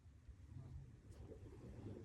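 Faint, steady low rumble of distant sea waves, with a faint tick about a second in.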